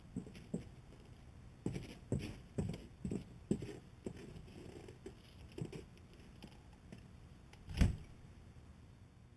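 Irregular soft knocks and rustles close to the microphone, bunched in the first half, then one louder thump about eight seconds in.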